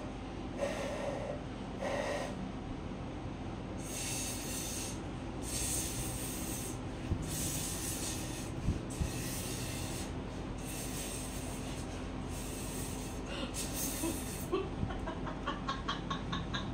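A person blowing hard into a small object held at the lips: a series of about eight breathy gusts of air, each about a second long. A run of quick, short, evenly spaced sounds follows near the end.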